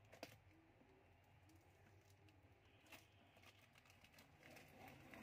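Faint fingernail scratching and a few light clicks as packing tape is picked at on a cardboard box, with a soft rustle of the tape starting to lift near the end.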